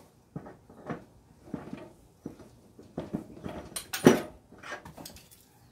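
Irregular metal knocks and clanks from knocking the key out of a riding lawn mower's rear axle to free the wheel hub, about ten strikes at uneven spacing with the loudest about four seconds in.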